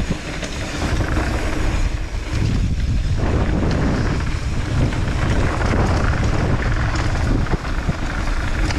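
Wind buffeting an action camera's microphone on a mountain bike riding fast down a dirt trail, a steady heavy rumble with scattered knocks and rattles from the bike and tyres over the bumps.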